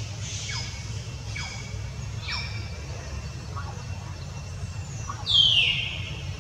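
A baby long-tailed macaque squeaking: a few short, high-pitched calls that fall in pitch, then a louder, longer falling call about five seconds in. A steady low rumble runs underneath.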